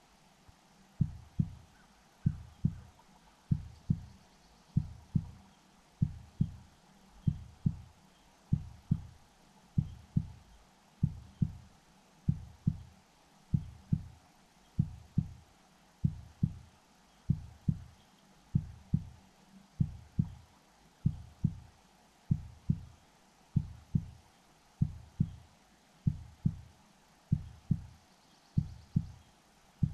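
A slow, steady heartbeat: paired low thumps, lub-dub, repeating a little under once a second and a quarter, starting about a second in.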